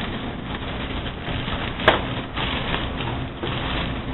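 Handling noise at a kitchen prep station, things being moved and set down on the counter, with one sharp knock about two seconds in.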